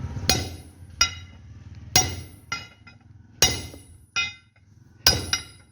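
A blacksmith's hammer striking metal on an anvil, about eight sharp blows at an irregular pace of roughly one a second, each ringing briefly, as a trowel blade is forged by hand.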